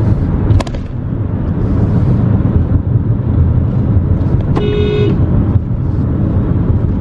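Steady road and engine rumble inside a moving car's cabin, with a single short car horn honk about four and a half seconds in.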